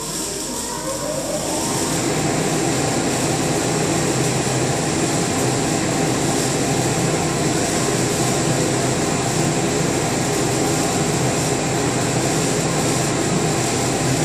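Blue modular plastic conveyor belt of an automated pick-and-place assembly machine starting up: a drive whine rises in pitch over the first second or so as it spins up, then the belt runs with a steady mechanical noise.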